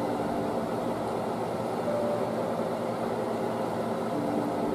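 Steady hiss with a faint hum from stovetop cooking: chicken in teriyaki sauce cooking in a wok on an electric stove.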